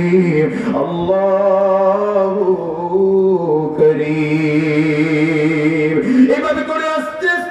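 A man's voice chanting in a drawn-out, melodic sung style, holding long notes that step up and down in pitch, with a glide upward a little past the middle.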